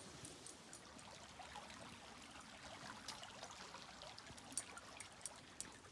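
Faint trickle of a small, shallow creek flowing, with a few scattered light clicks over it.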